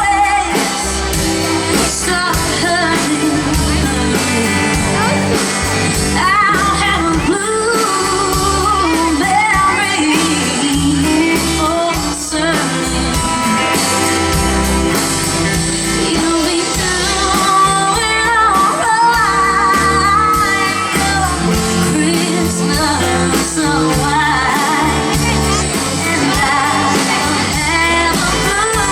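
Live band playing a song with a steady beat while a woman sings.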